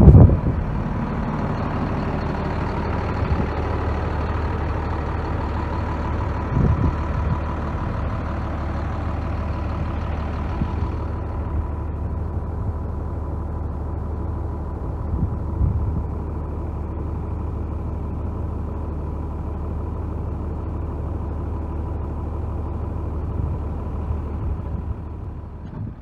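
An engine idling steadily, a low even hum.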